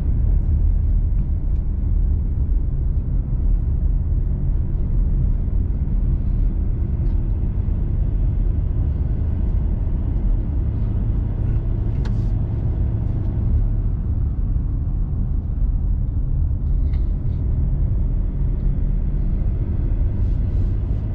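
Steady low rumble of a four-wheel-drive vehicle driving along, heard from inside the cabin: engine and tyre-on-road noise. A brief sharp click sounds about twelve seconds in.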